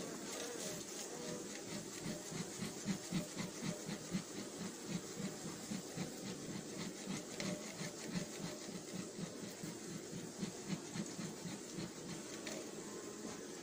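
Bee smoker being pumped by hand, its bellows puffing smoke over the open hive's frames in a quick even rhythm of about three puffs a second, each a short hissing whoosh.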